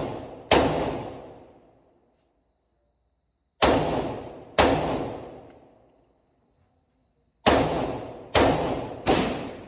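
Six shots from an FN 15 AR-15-type rifle, each with a long echoing decay. They come in uneven groups: one early, two about a second apart in the middle, then three in quick succession near the end.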